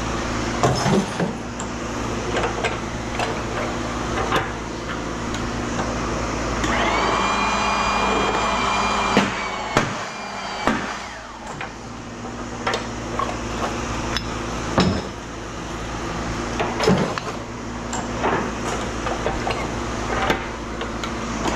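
A press running with a steady low hum while scrap metal clanks and knocks repeatedly. About seven seconds in, a whining note rises and holds for about two seconds, then stops with a knock as the press works under load; the whine rises again near the end.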